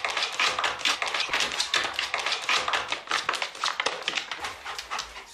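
A mould-detection dog scratching and sniffing at a skirting board, a quick run of irregular clicks and scratches, as it marks the spot where it smells mould.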